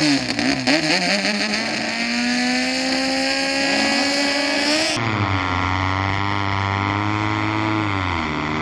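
Racing speedboat engine running, its pitch climbing steadily for about five seconds as it revs up. Then, after a sudden change, it runs steadier and lower, dipping briefly near the end.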